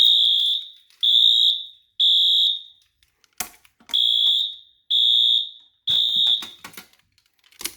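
Wheelock AS electronic fire alarm horn sounding the temporal-3 evacuation pattern: three high-pitched beeps about a second apart, a pause, then three more, the signal of a pulled manual pull station. A single click falls in the first pause.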